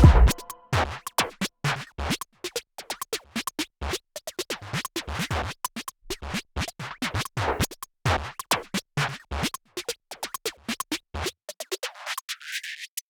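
Background electronic music in a quieter break: rapid chopped, stuttering hits with scratching. Near the end the low end drops out in a sweep.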